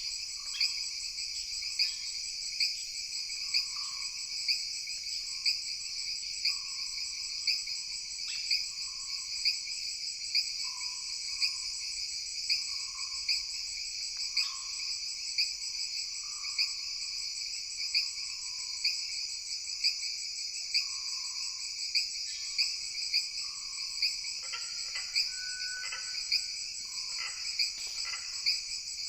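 Forest ambience dominated by a dense, unbroken chorus of crickets and other insects, shrill and steady, with a sharper pulse about once a second. Soft short calls sit beneath it, and a flurry of chirpy bird calls joins near the end.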